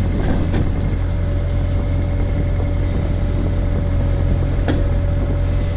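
Case/Davis D100 backhoe's engine running steadily, with a steady high whine over the low rumble and a couple of short knocks as the machine works to fill a stump hole.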